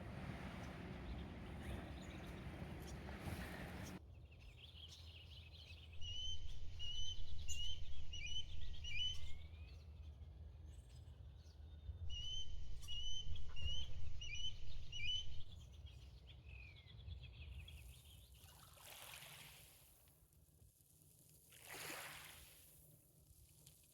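A bird calling in two runs of sharp, repeated piping notes, each run a few seconds long, over a low rumble. A few soft swells of hiss follow near the end.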